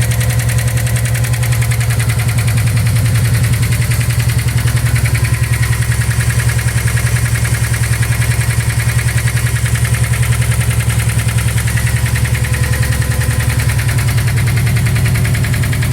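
Subaru WRX's turbocharged flat-four boxer engine running steadily with an even, rapid knock. The knock sounded like rod knock but turned out to be a bent valve.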